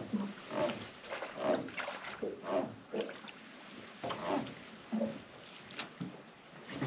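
Small waves lapping and sloshing against the hull of an aluminum jon boat in a string of irregular slaps, with water splashing near the side.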